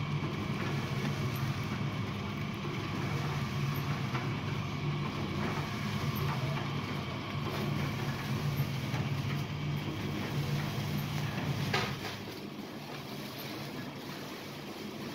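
Salt grinding and packing machine running, its electric motor giving a steady low hum under a hiss, as the stirring arm works powdered salt in the steel hopper. A sharp click comes about twelve seconds in, after which the low hum drops away.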